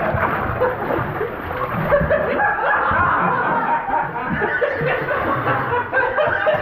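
Men's voices chuckling and laughing in short bursts, without clear words.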